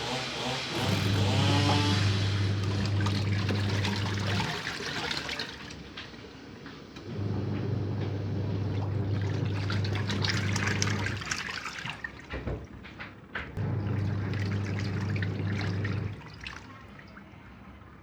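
Sharp twin-tub washing machine on its wash cycle: the pulsator motor hums in runs of a few seconds with short pauses between, over water churning and splashing in the tub.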